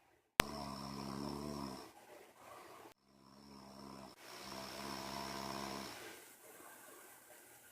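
Snoring: several drawn-out, pitched snores of a second or two each, with quieter breaths between. A single sharp click comes just before the first snore.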